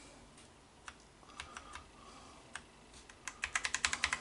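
Computer keyboard keys being pressed: a few single key presses, then a quick run of repeated presses near the end.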